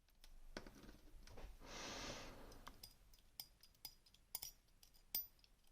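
A soft breath, then a scatter of small, sharp metallic clicks from about halfway in, as the parts of a disassembled Rosengrens disc-detainer lock are handled. All of it is faint.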